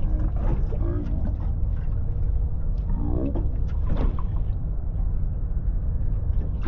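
Steady low rumble aboard a small fishing boat, with faint snatches of voices about half a second, three and four seconds in.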